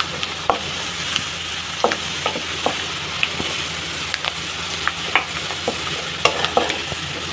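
Sliced onions sizzling as they fry in hot oil and ghee in a wok, stirred with a spatula: a steady hiss with scattered pops and clicks of the spatula against the pan. The onions are being fried toward golden brown.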